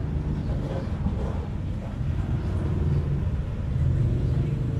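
Low, steady background rumble.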